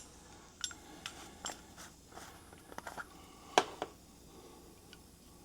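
Scattered light clicks and clinks from the T-handle tire plug tools being handled, about eight or nine in all, the loudest a little past halfway.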